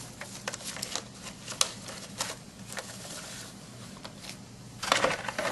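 Label roll and plastic parts of a Zebra desktop label printer being handled as the labels are reloaded: scattered light clicks and rustling, with a louder rustle of handling noise near the end.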